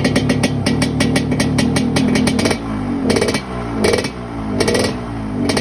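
Yamaha RX King two-stroke single-cylinder engine breathing through an underbelly racing exhaust, running with the rough, rapid 'ngorok' note. After about two and a half seconds the throttle is blipped four times, with the revs falling back after each blip.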